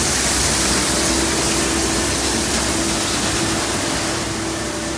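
Tunnel car wash equipment running: a steady hiss of water spray over spinning cloth brushes, with a constant motor hum underneath.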